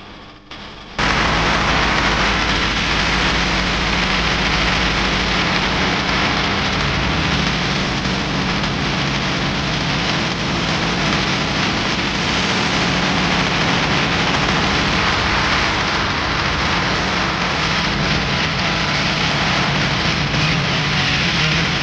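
A loud, steady rushing noise with a low hum under it, starting suddenly about a second in and holding unchanged.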